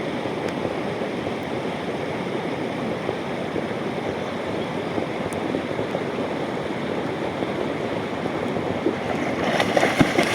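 River water rushing steadily; splashing in the water starts near the end.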